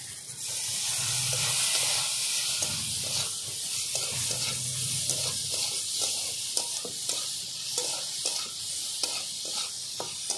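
Hot oil in a karai sizzling hard as soaked tamarind goes in with the coconut strips and fried fish, starting about half a second in. A metal spatula scrapes and stirs through the pan, its ticks and scrapes coming more often toward the end.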